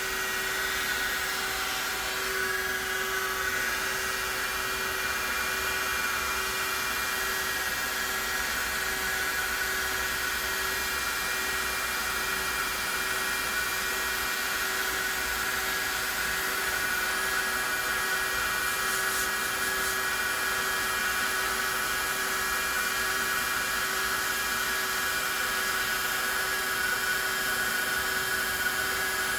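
Hot-air plastic welding heat gun running steadily at a high heat setting, its blower fan giving an even whine with a few fixed tones over a rush of air.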